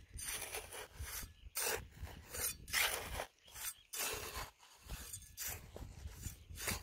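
A hand trowel scraping and digging into dry, sandy, gravelly soil around a grass tuft, in repeated short, irregular scraping strokes.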